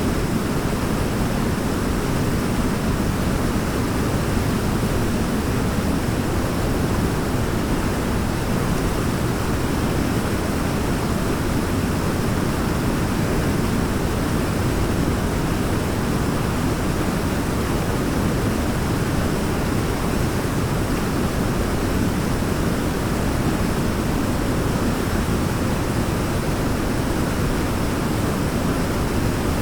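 Waterfall: a steady, unbroken rush of falling water, deep and even, with no changes.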